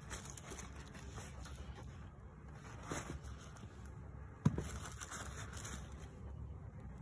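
A hand rummaging among potatoes and sweet potatoes in a fabric shopping bag, with soft cloth rustling and scraping and a light knock about four and a half seconds in as the vegetables bump together.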